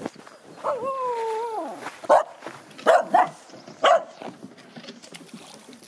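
A dog whines once, a long wavering cry that drops at its end, then barks four short loud barks over about two seconds.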